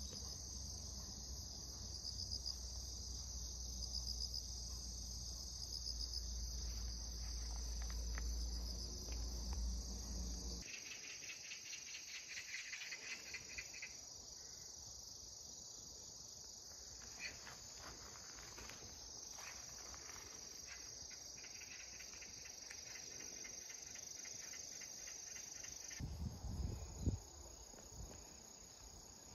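A steady, high-pitched insect chorus trilling, with a second pulsing insect trill joining about eleven seconds in. A low rumble lies under it for the first ten seconds, and a few soft thumps come near the end.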